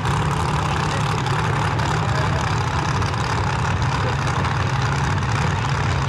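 Drag race cars' engines idling, a loud, steady drone that holds without revving.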